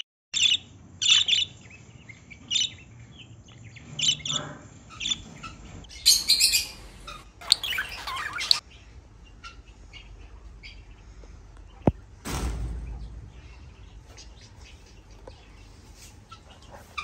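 Rosy-faced lovebirds chirping in short, sharp, shrill calls, with a dense run of chirping about six to eight and a half seconds in. After that only faint, scattered chirps remain, with a low rumble about twelve seconds in.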